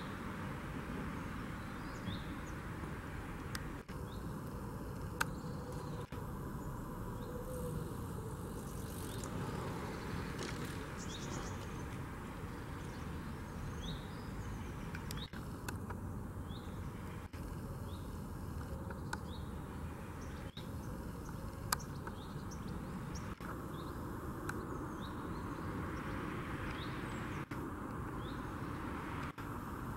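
Outdoor ambience: a steady low rumble with short bird chirps every few seconds and a few faint clicks.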